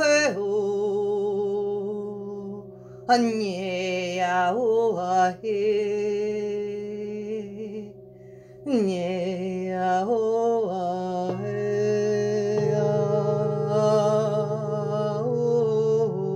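A woman's voice wordlessly chanting light language in gliding, wavering phrases, one about three seconds in and another about nine seconds in, over the sustained ringing drone of singing bowls. A lower drone tone comes in about halfway through.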